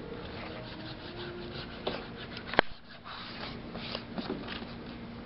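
A hand smearing and dabbing paint onto a stretched canvas in quick, scratchy rubbing strokes, with one sharp knock about two and a half seconds in.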